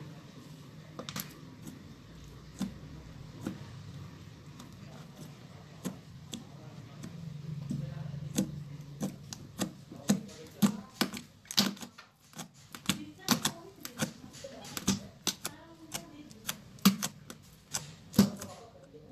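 Creamy pudding slime being squished and pressed by hand, giving irregular sharp clicks and pops that come much faster from about halfway through.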